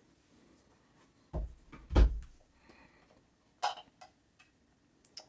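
A few dull knocks and thumps, the loudest about two seconds in, then a sharper clack and some light clicks: a CPU box and its packaging being handled and opened.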